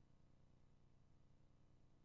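Near silence: a faint, steady low hum of line or tape noise.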